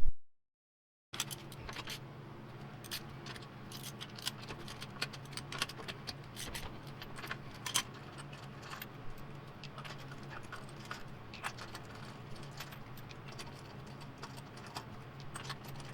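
Irregular light metallic clicks and clinks of hand tools and metal parts being handled, over a steady low hum, starting after a brief gap of silence.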